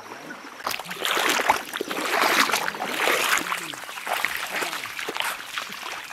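Two people's feet in flip-flops splashing step by step through ankle-deep river water. The splashing starts about a second in and eases off near the end, with people talking underneath.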